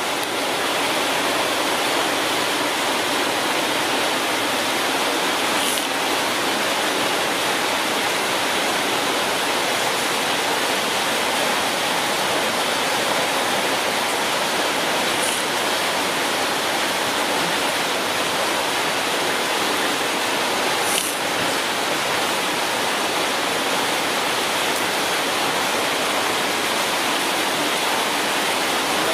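Steady, even rushing hiss like white noise or running water, unchanging throughout, with a few faint high ticks.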